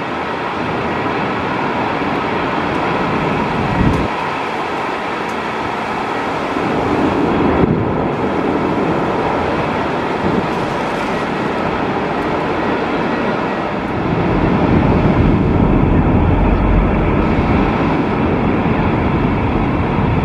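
Jet engines of a Boeing 777 heard at a distance as it rolls along a waterlogged runway, mixed with a steady rush of heavy rain and gusting wind. A deeper rumble swells about fourteen seconds in.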